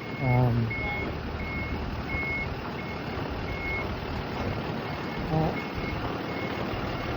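A truck's reversing alarm beeping steadily, about one and a half high beeps a second, over the running engine and street noise.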